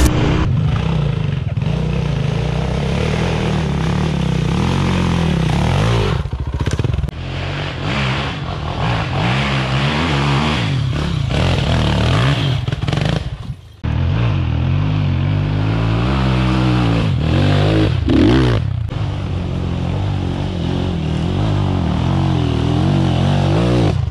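Enduro dirt bike engine being ridden hard off-road, its pitch repeatedly rising and falling as the throttle is opened and closed, with a brief drop-out about two-thirds of the way through.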